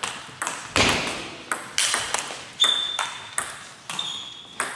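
Table tennis ball being struck by rackets and bouncing on the table in a rally: a fast run of sharp clicks, a few a second, echoing in a large hall. Two short high squeaks come about halfway and near the end.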